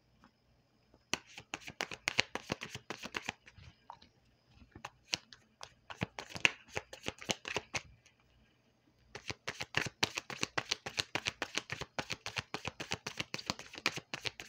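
Tarot deck being shuffled by hand: quick runs of crisp card-on-card flicks and clicks. There is a burst a second or so in, sparser flicks in the middle, and a long dense run over the last five seconds.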